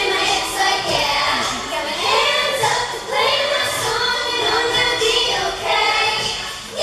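A group of young girls singing together.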